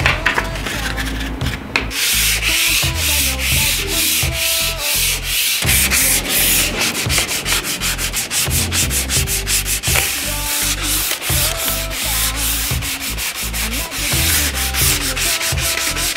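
Sandpaper rubbed by hand over a bare wooden board in quick back-and-forth strokes, a continuous scratchy rasp.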